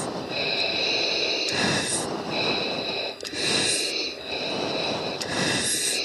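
Breathing through an oxygen mask on the cockpit intercom: a repeated hissing rush with each breath, roughly one every second or so, over a steady background of cockpit noise.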